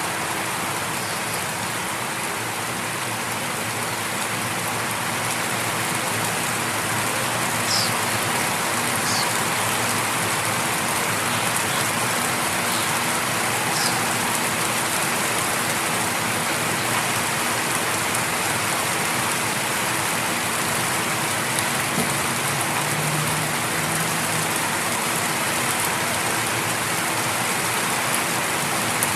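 Light rain falling steadily, pattering on leaves, grass and concrete.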